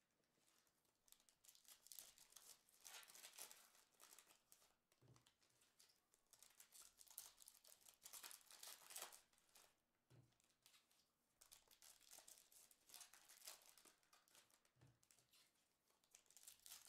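Faint crinkling and tearing of a foil Donruss football card pack wrapper being ripped open by hand, in repeated short bursts, with a few soft taps.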